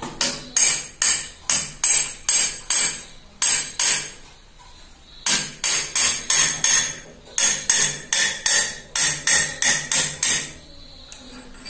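Hammer blows on the end of an industrial sewing machine's upper shaft, driving it out through its bushings: sharp strikes about two a second in runs, with a pause of about a second some four seconds in.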